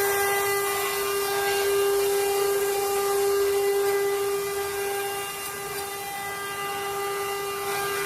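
CNC wood-carving router spindle running with a steady high whine, the bit cutting wood.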